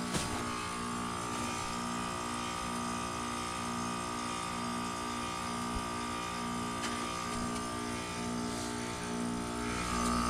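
Goodman heat pump outdoor unit running: its scroll compressor and condenser fan make a steady hum with a high steady whine over it. A low drone pulses about one and a half times a second.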